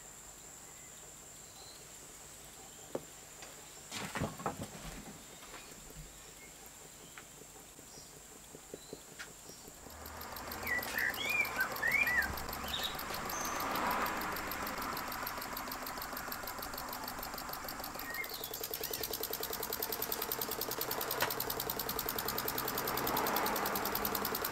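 Model V-twin oscillating-cylinder (wobbler) steam engine running, a rapid even beat of exhaust puffs and clatter that starts about ten seconds in. Before that there are only a few light clicks, and birds chirp briefly near the engine's start.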